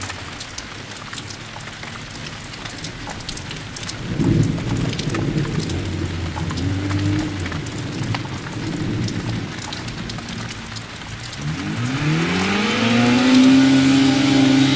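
Lada rally car's four-cylinder engine dropping back off throttle while the car rolls across the grass, with scattered crackles and a low rumble. About eleven seconds in the engine revs up in a rising whine and holds high revs to the end.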